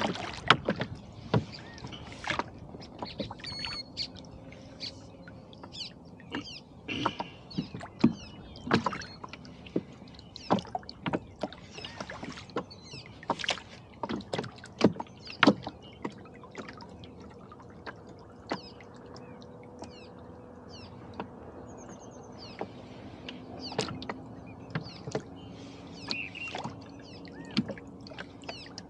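Irregular small knocks and clicks from a rowboat and its oars as it is held in place on the water, with a few faint bird chirps and a faint steady hum in the second half.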